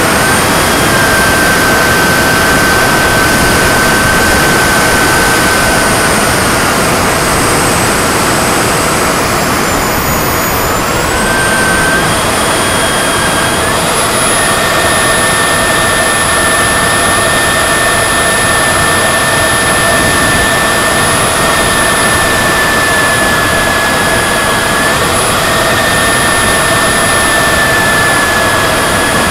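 Model jet's turbine engine heard onboard in flight: a steady high whine over rushing air. The whine dips about ten seconds in as the turbine spools down, then climbs higher and holds as it spools back up.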